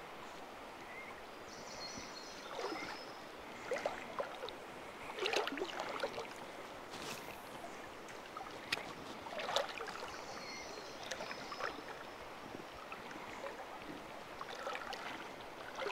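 Steady rush of a rocky river, with short, irregular water splashes and sloshes every second or two.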